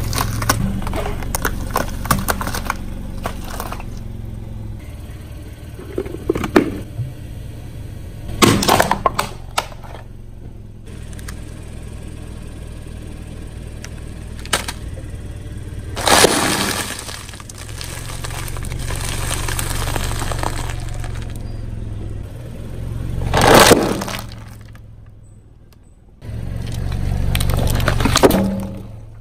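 A car's tyres rolling over and crushing brittle objects: a series of separate crackling, breaking crunches, the loudest about three quarters of the way through, over the low steady sound of the car running.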